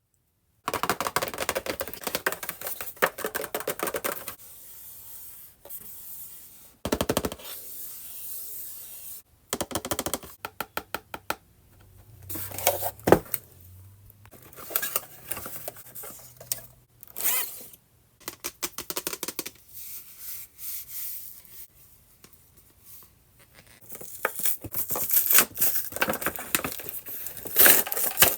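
Toy packaging of a Barbie Color Reveal being handled and opened: plastic and paper crinkling, tearing and scraping, with taps and a run of quick clicks about ten seconds in.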